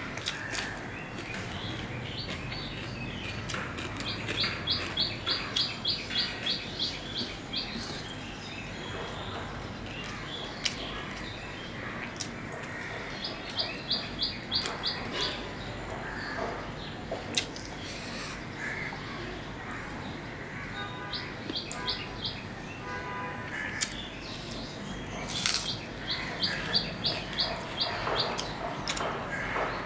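A small bird calling in quick series of high, evenly spaced chirps, about four a second, in four spells of a few seconds each. Softer chewing and the clicks of fingers mixing rice on a plate run underneath.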